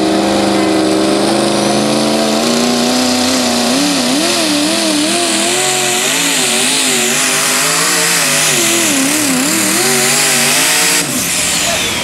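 Modified Chevrolet pickup pulling truck's engine at full throttle dragging a sled. Its pitch climbs, then swings up and down repeatedly, and it drops off abruptly about a second before the end.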